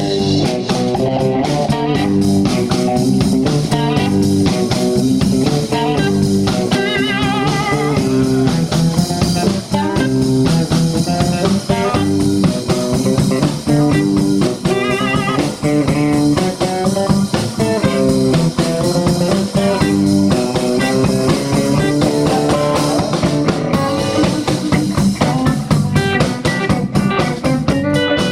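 Live blues band playing an instrumental passage: electric guitars over bass and a drum kit, with the lead guitar's high notes wavering in vibrato.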